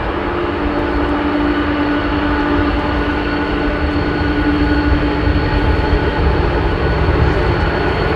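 Boeing 787-9 airliner's jet engines at take-off thrust as it lifts off and climbs away: a loud, steady rumble with a thin steady whine over it, swelling slightly partway through.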